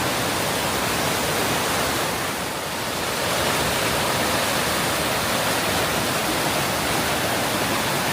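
Water of a waterfall rushing and pouring down its rocky channel: a steady, full, even rush with a slight dip about two and a half seconds in.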